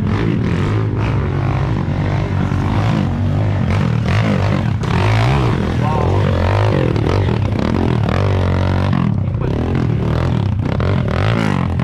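Dirt bike engine running, its revs rising and falling as the rider works through the off-road course, with voices in the background.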